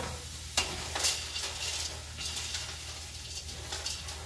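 Bacon and seasonings sizzling in a steel stockpot on a gas burner, with a couple of sharp clinks about half a second and a second in, then lighter clicks and scrapes of a utensil stirring in the pot.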